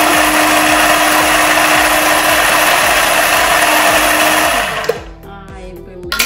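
Small electric food chopper running steadily as it grinds walnuts into crumbs, with a steady motor hum; it cuts off about three-quarters of the way through. A single clink follows near the end.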